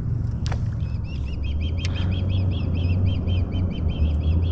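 A bird calling in a fast, even series of short chirps, about five a second, starting about a second in, over a steady low rumble.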